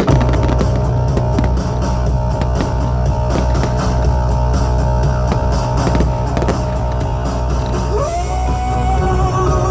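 Loud rock music with guitar and a heavy, steady bass, with many short sharp cracks through it and a rising guitar or vocal line near the end.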